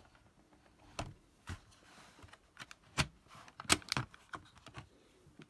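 Irregular sharp plastic clicks and knocks as the removable battery of a Dell Inspiron 15 3567 laptop is unlatched and taken out, with a quick cluster of clicks about four seconds in.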